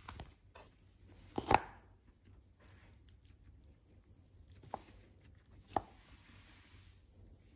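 Fresh grass being torn and chewed: crisp snaps of blades plucked from a pot, the loudest about a second and a half in and two smaller ones later. Faint crunching of a guinea pig chewing the grass comes in between.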